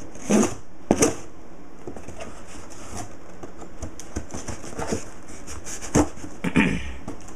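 Cardboard shipping box being opened by hand: a few sharp knocks and scrapes of the cardboard near the start and again about six seconds in, with light crackling of the box flaps in between.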